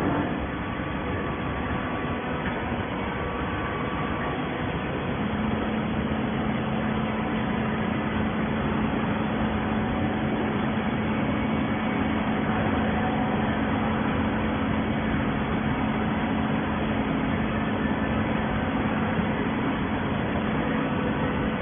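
Hydraulic scrap carton baler running: steady machine noise, with a steady hum that comes in about five seconds in and holds.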